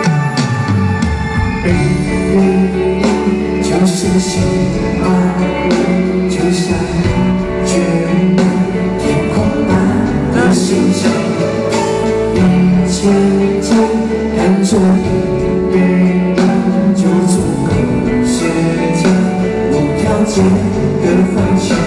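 Live pop concert music: a male singer singing into a handheld microphone over band accompaniment with a steady beat.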